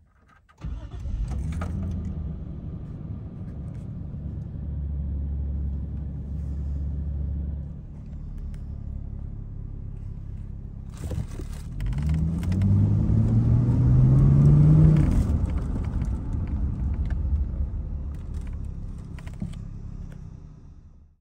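Toyota Soarer GZ20's 2.0-litre twin-turbo inline-six running, heard from inside the cabin; starting about half a second in, it holds a steady low note, then climbs in pitch for about three seconds past the middle before dropping back.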